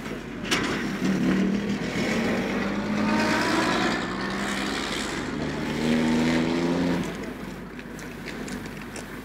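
A motor vehicle engine passes on a street. Its note climbs, dips about five seconds in and climbs again, then falls away about seven seconds in, leaving a general street hum.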